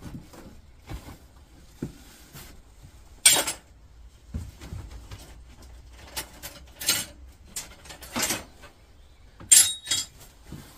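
Scrap metal clinking and clattering as pieces are moved about, with scattered sharp knocks. Near the end comes a loud metallic clink with a brief ring as the aluminium pipe drops into the scrap bin.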